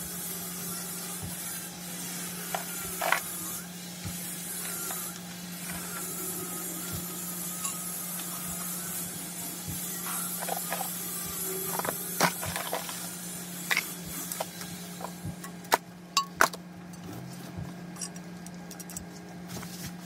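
Plastic toilet tank fittings and rubber washers being handled and fitted together: scattered light clicks and knocks of plastic parts, with a few sharper knocks late on, over a steady low hum.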